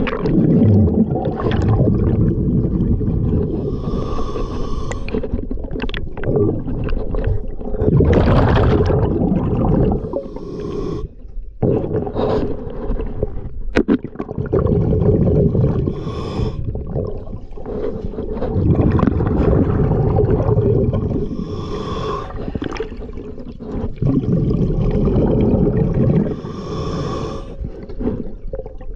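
A diver breathing underwater through a diving regulator. Each breath in gives a short hiss, and each breath out a long bubbling rumble, in a cycle about every five or six seconds.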